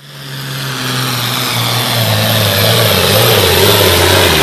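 Pulling tractor's engine running hard, fading in from silence and growing louder, its low note dropping in steps.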